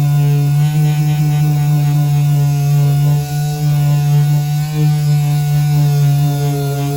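Mirka pneumatic orbital sander running at a steady speed, a loud steady hum with overtones, as it sands the oxidised plastic bodywork of a motorcycle.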